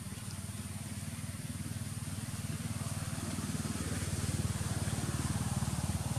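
A small engine running steadily with a low, rapid pulsing; it grows slightly louder about halfway through.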